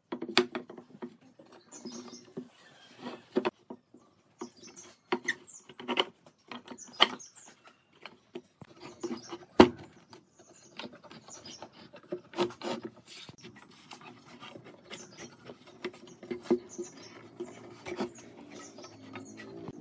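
Glued pine boards being set down and knocked into pipe clamps on a workbench: a string of sharp wooden knocks and clicks, the loudest about ten seconds in, with hands rubbing and sliding over the boards.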